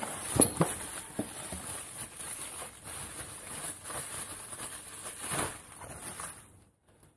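Packaging being handled: a cardboard box flap and bubble wrap rustling and crinkling as a new piston is unwrapped by hand, with a few sharper clicks and knocks. The rustling dies away near the end.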